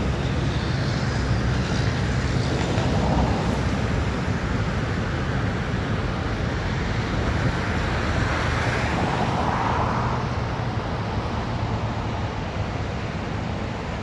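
Steady low engine rumble with a rushing noise that swells a couple of times, about three and ten seconds in, and eases off near the end: traffic and heavy machinery running at a construction site.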